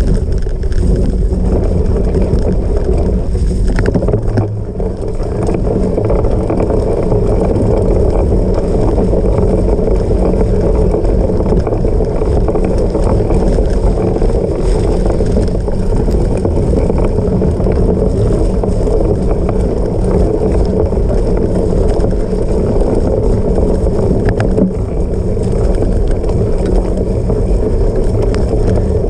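Steady loud wind rushing over the microphone mixed with the rumble of a cyclocross bike's tyres on rough off-road ground, dipping briefly about four seconds in.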